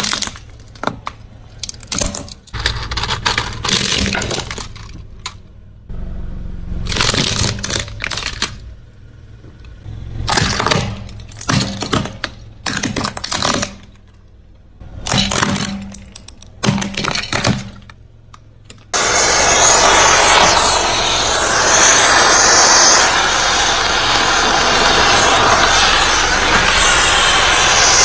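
Car tyre crushing crunchy objects: bursts of cracking and crunching in quick clusters. About two-thirds of the way through, a loud, steady noise takes over.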